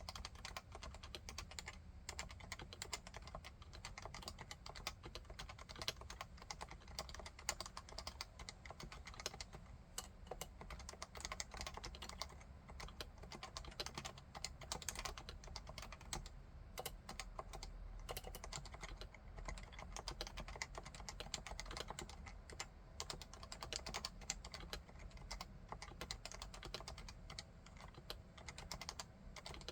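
Continuous fast typing on a Leopold FC660C keyboard with Topre electrostatic capacitive (contactless) switches: a dense, unbroken run of keystrokes.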